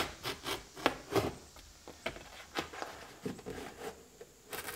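Utility knife blade slicing through a kraft-paper-faced R-13 fiberglass insulation batt that is pressed flat under a level, heard as a run of short, irregular scratchy strokes. The strokes come closest together in the first second or so, then thin out.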